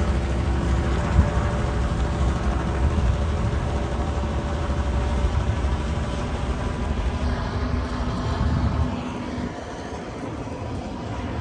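Small tour helicopter flying overhead, a steady rotor and engine rumble that fades away about nine seconds in.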